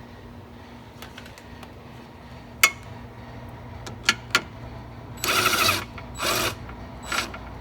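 Ratchet wrench working the 13 mm bolt on the steering shaft coupling: a few single sharp clicks, then two longer bursts of rapid ratcheting about five and six seconds in, and a short one near the end.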